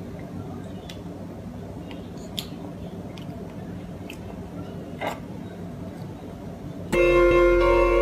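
Quiet room tone with a few faint short clicks. About seven seconds in, loud music with long held notes starts abruptly.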